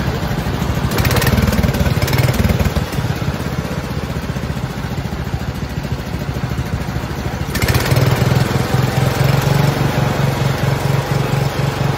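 Wheel Horse garden tractor's single-cylinder Kohler engine running through a tall open exhaust stack, steady at first, then louder and harder-running from about seven and a half seconds in as the throttle is opened.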